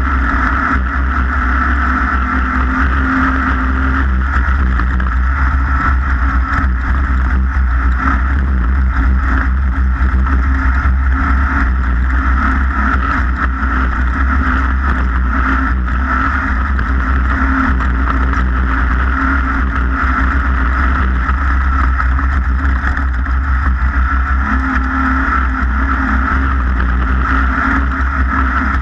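Racing boat's engine running steadily at speed, a continuous deep rumble that neither rises nor falls.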